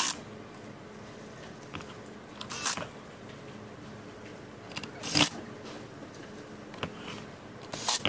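Plastic body of a handheld stick vacuum being handled and shifted on a tabletop: four short scrapes a couple of seconds apart, with a few light clicks between them.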